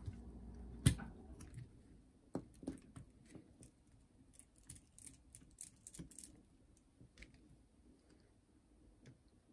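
Faint scattered clicks and ticks of hand work inside a JVC M70 boombox's cassette deck, a screwdriver and small metal and plastic parts being handled as parts are taken out, with one sharper click about a second in.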